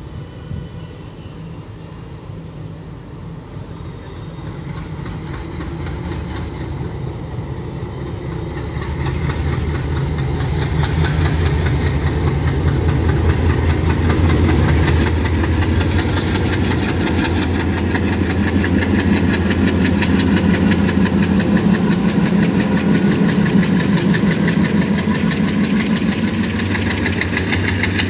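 ALCO diesel-electric locomotive's 16-cylinder 251 engine chugging as it throttles up to pull a passenger train away. It grows louder over the first ten seconds or so, then holds a loud, steady, pulsing beat as the locomotive passes close by.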